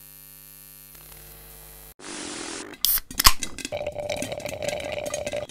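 Electronic sound effects for a logo outro: a steady chord of held tones for about two seconds, then a burst of hiss, a cluster of sharp clicks and hits about three seconds in (the loudest part), then a steady buzzing tone with crackle.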